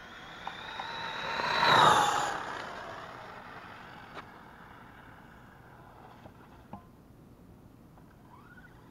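Losi XXX-T electric RC truck going past at speed: its motor whine builds to a peak about two seconds in, drops in pitch as it passes, then fades away. A few light ticks follow.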